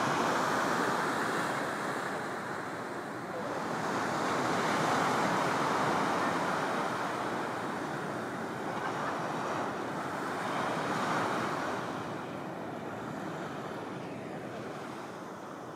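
Ocean surf: waves breaking and washing in, a steady rush of noise that swells and eases in three slow surges.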